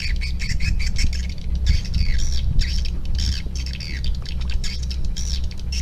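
Many birds calling at once, a dense run of quick, overlapping squawks and chirps, over a steady low hum.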